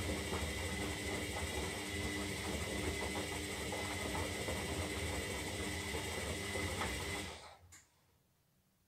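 Zanussi Lindo 300 washing machine running with a steady motor hum and whine, which stops about seven seconds in, followed by a faint click.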